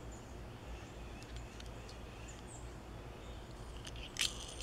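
Faint outdoor background with a few thin, distant bird chirps, and a couple of sharp clicks a little past four seconds in as the small die-cast toy car is handled in the fingers.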